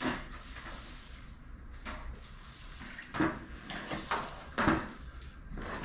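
Wet sponge mops scrubbing a ceramic tile floor: a series of short, separate swishing strokes.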